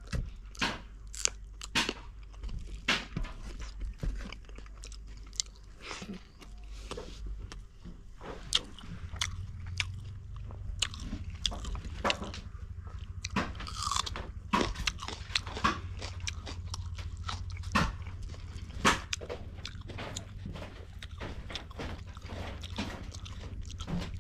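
A person eating fish and rice close to the microphone: chewing and biting, with many sharp, irregular mouth smacks and crunches. A steady low hum comes in about nine seconds in.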